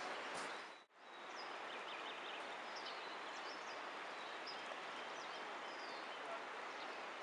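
Small birds chirping repeatedly in short high calls over a steady rushing background noise.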